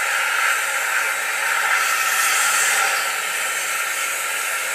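230-volt vacuum cleaner running on its blow function, a steady rush of air and motor noise as it pumps air into the pontoon of an inflatable dinghy.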